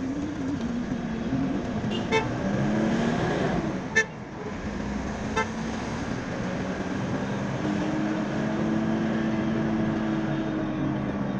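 Car driving on a city street: steady engine and road noise. Three short car-horn toots sound about two, four and five and a half seconds in, the middle one the loudest.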